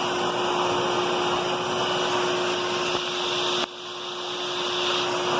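Hoover WidePath Tempo upright vacuum cleaner running with its hose attachment: a steady rush of air over a constant hum. About two-thirds in the sound drops suddenly, then builds back up over a second or so.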